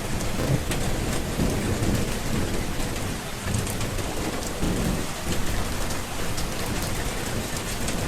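Steady rain with many fine drop ticks, under low rumbling thunder that swells twice, near the start and again about five seconds in.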